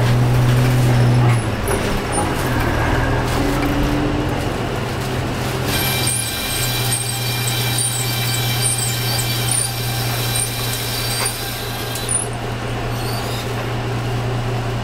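Nissan Diesel RN city bus heard from inside the cabin, its diesel engine running with a steady drone as the bus pulls away. The engine note shifts a little twice. From about six to twelve seconds a higher hiss with a thin whine joins it.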